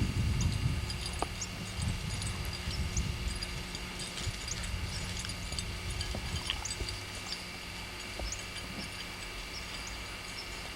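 Footsteps and rustling through field cover, heaviest in about the first second and fainter after, over a steady low hum, with scattered small ticks.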